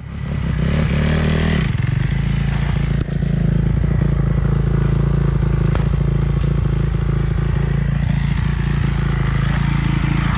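Four-stroke dirt bike engine running steadily at an even, low pitch, with light scraping and knocking from the camera being handled close by.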